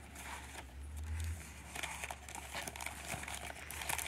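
Paper rustling and crinkling as hands shuffle stacks of journaling paper pieces and slide them back into a cardboard box, in irregular bursts that are busiest about two seconds in and near the end.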